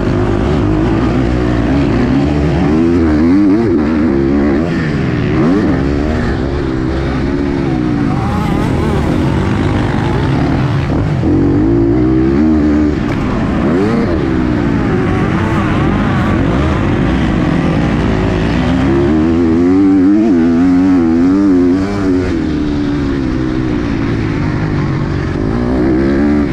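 KTM 250 SX-F single-cylinder four-stroke motocross engine heard from on board under race throttle, its pitch rising and falling over and over as the rider opens and shuts the throttle and shifts.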